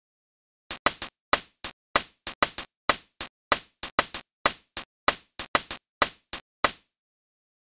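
Electronic hi-hat pattern playing alone as an isolated drum track. Short, crisp hits come in a syncopated rhythm of about four a second, start under a second in and stop about a second before the end.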